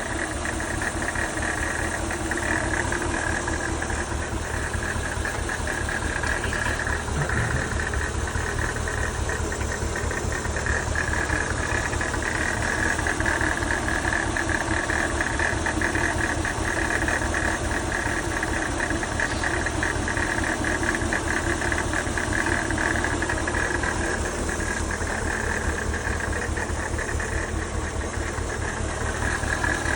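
Mercedes-Benz CL500 (C215) V8 idling steadily, with a constant higher-pitched noise over the engine from the power steering pump, which the owner puts down to a worn pump bearing.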